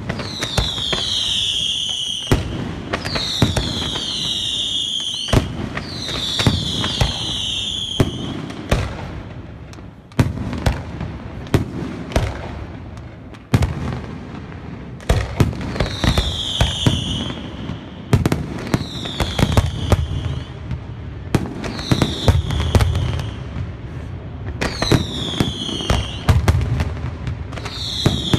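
Aerial fireworks display: a rapid run of bangs and crackles from bursting shells over a low rumble, with high whistles that fall in pitch about every two seconds.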